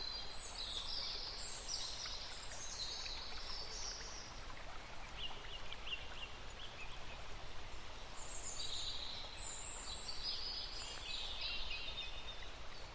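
Birds singing in two spells of high, quick chirping notes over a steady background hiss, with a few faint ticks in between.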